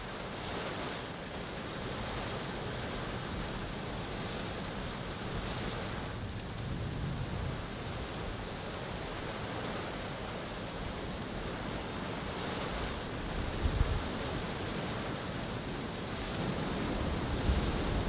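Strong wind blowing in a winter snowstorm, rising and falling in gusts, with low rumbles of wind buffeting the microphone about 14 seconds in and again near the end.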